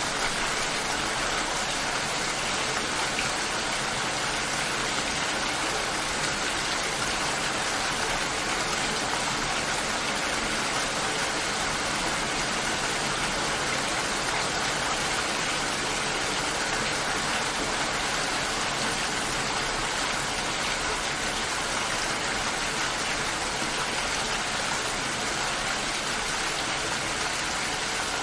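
Steady rainfall: an even, unbroken hiss of rain with no separate drops or gusts standing out.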